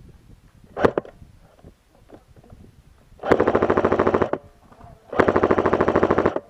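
Airsoft rifle fired on full auto in two rapid bursts, each about a second long, the second following about a second after the first. A single sharp crack comes about a second in.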